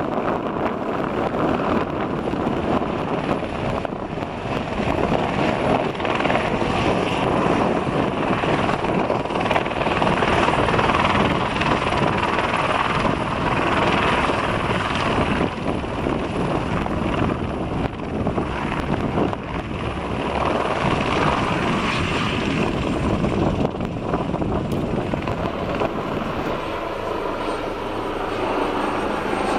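Eurocopter AS350B3 Ecureuil helicopter running and hovering, a steady loud mix of single-turbine whine and rotor noise. Near the end the sound changes to a different helicopter, an AgustaWestland AW139, in flight.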